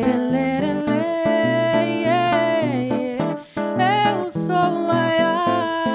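A woman singing a melody of long held notes that slide between pitches, with a short break about halfway, over a strummed acoustic guitar.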